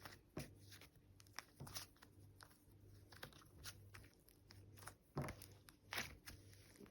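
Butter slime being pressed and stretched by hand, giving small bubble pops at irregular moments, not so loud, with the strongest pops a little after five seconds and near six seconds.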